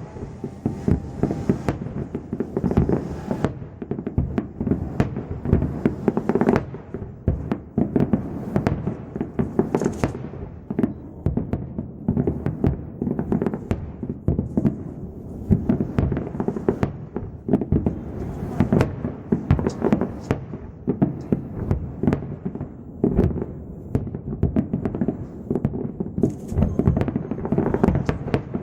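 Fireworks display in a dense, continuous barrage, bursts and bangs following one another several times a second with no let-up.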